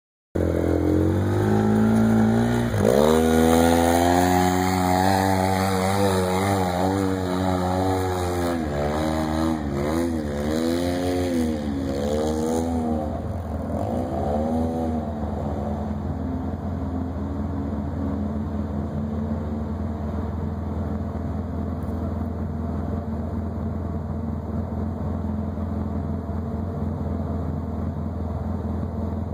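Off-road vehicle engine revving, its pitch rising and falling again and again for about fifteen seconds, then running steadily and a little quieter.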